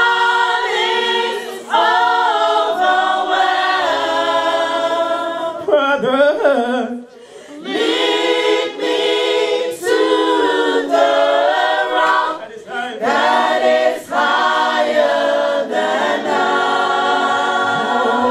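Gospel worship team singing together through microphones: a male leader and a group of women's voices in harmony, with long held notes.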